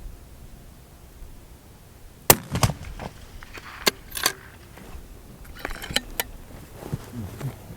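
A string of sharp metallic clicks and knocks, typical of a target rifle's bolt being worked and a round being loaded. One loud click comes about two seconds in, and several lighter ones follow over the next few seconds.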